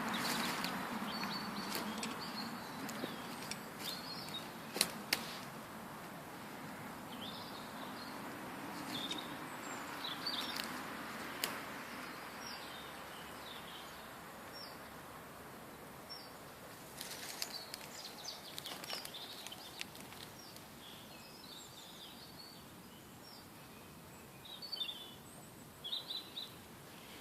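Wild birds chirping and singing, many short high calls scattered throughout, over a steady outdoor hiss. A few sharp clicks and rustles break in, the loudest about five seconds in.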